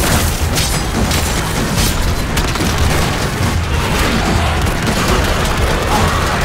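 TV action soundtrack: gunshots and heavy booming hits over a loud, dense score. There are a few sharp shots in the first couple of seconds, then pistol fire again near the end.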